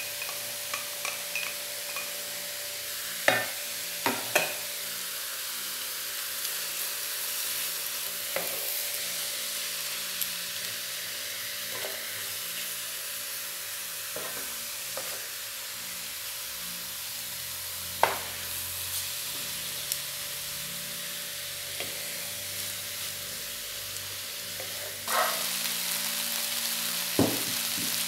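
Ground beef with chopped onion and garlic sizzling in a frying pan while it browns, with scattered sharp knocks of a wooden spoon stirring against the pan. The sizzle steps up louder near the end.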